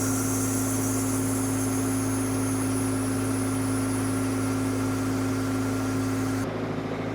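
Ford 555C backhoe's diesel engine idling steadily, with a high hiss over it that cuts off near the end, where the engine sound also drops slightly.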